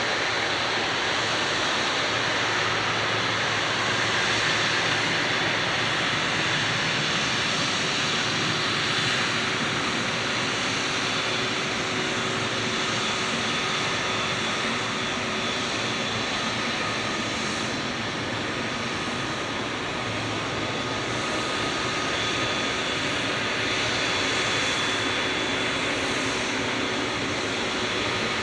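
Jet airliner engines heard steadily across an airfield: an even rush of jet noise with faint steady whining tones, with no swell or peak.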